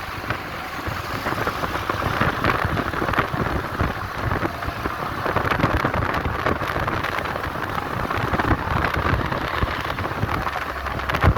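Vehicles on the move: a steady rush of road noise with low engine rumble.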